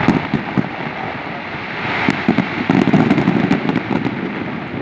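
Aerial fireworks going off in quick succession: a dense run of sharp bangs and crackling over a continuous rumble, thickest in the middle.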